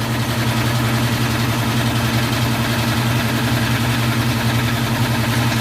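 Powercraft 3 hp air compressor with a new twin-piston pump running with a steady, even hum. There is no chugging knock: the replacement pump sounds normal.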